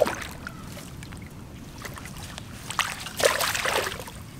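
A hooked peacock bass thrashing and shaking its head in shallow water, splashing: a sharp splash at the start and a longer burst of splashing about three seconds in.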